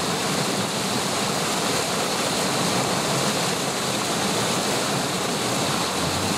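Steady rush of fast-flowing canal water, a constant even wash of noise with no distinct splashes standing out.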